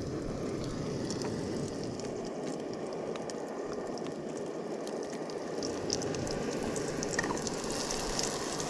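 Mushrooms frying in butter in a cooking pot: a steady sizzle with small crackling pops that come more often in the second half.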